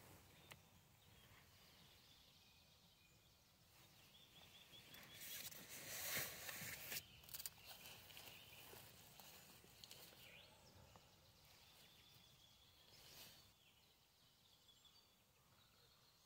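Quiet forest ambience with faint high bird calls, short notes in quick series. About midway a brief rustling swell, such as wind through leaves, rises and falls.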